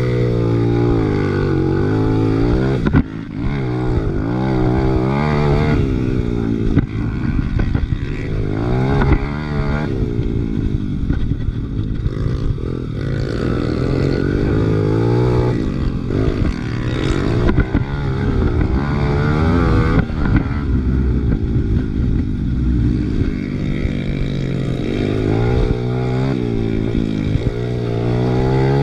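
Big-bore Honda XR100R single-cylinder four-stroke engine being ridden hard, revving up and dropping back over and over as the throttle opens and closes, with a brief dip about three seconds in.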